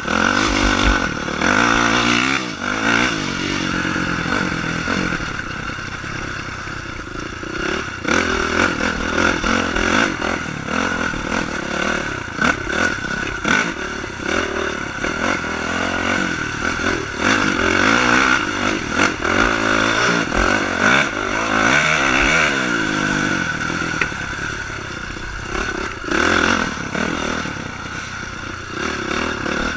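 Honda CRF450 dirt bike's single-cylinder four-stroke engine revving up and down repeatedly as it is ridden hard along a trail, heard from on board, with rattling and clatter from the bike over rough ground.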